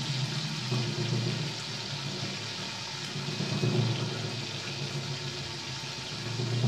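Amplified sizzle of a saxophone being deep-fried in hot oil: a steady hiss with a low hum underneath that swells and fades.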